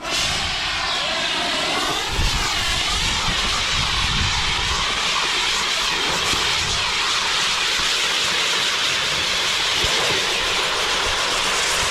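Firework fountain spraying sparks with a loud, steady hiss that starts suddenly and keeps going without bangs.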